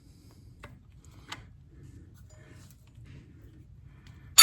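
Hand tools working a valve rocker-arm adjuster on a Case 770 diesel tractor engine: a couple of faint metallic clicks as the tight exhaust valve's lash is loosened, then one sharp metal clank at the very end.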